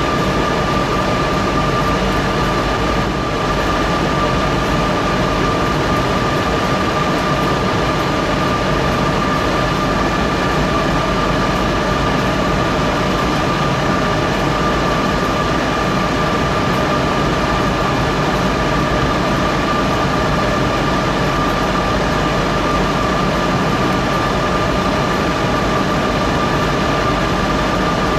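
Cooling fans of a Juniper MX480 router running steadily: a loud, even whir with a constant whine on top. The noise dips briefly about three seconds in.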